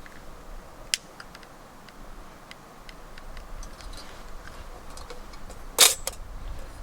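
Scattered small clicks and taps of objects being handled, with a sharp click about a second in and a louder double knock near the end.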